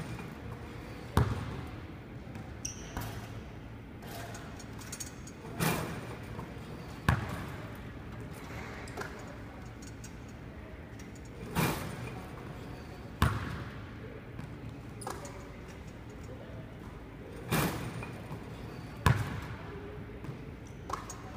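Basketball shooting drill with a ball-return rebounding machine: the ball hits the rim and net and the machine fires it back out. These thuds come in pairs, about one pair every six seconds.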